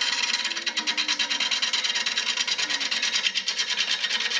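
Bowl gouge cutting into a spinning wooden bowl blank on a wood lathe: a rapid, even ticking chatter as the tool edge meets the blank, which is not yet round.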